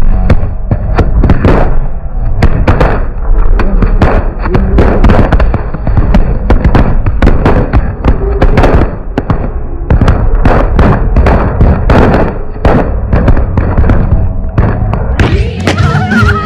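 Ground firework going off on a concrete block: a rapid, irregular string of loud bangs and crackles, several a second, as it sprays sparks. Near the end a wavering pitched sound comes in over it.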